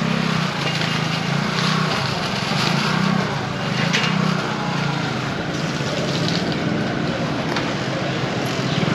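A small engine running steadily with a low, gently pulsing hum. Plastic shopping bags rustle and click a couple of times as they are set into a wire bicycle basket.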